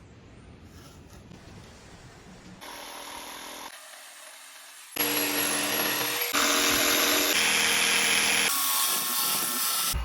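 A power tool working on the packers, quiet for the first few seconds, then running loudly from about halfway through in several short stretches with abrupt changes between them.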